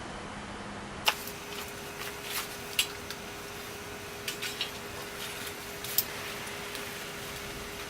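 Scattered sharp clicks and knocks, about half a dozen, over a faint steady hum.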